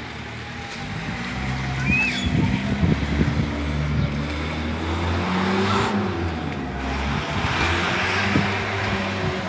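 Car engines running in the street, with a faint civil-defence warning siren wailing in the background, its pitch sinking slowly.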